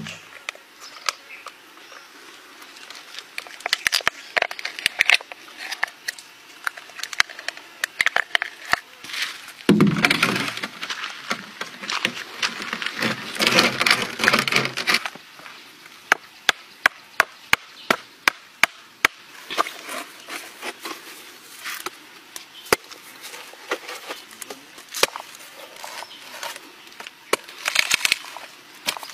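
Green coconut husks being handled and split with a knife: a string of sharp cracks and knocks, with a louder stretch of scraping and rustling in the middle.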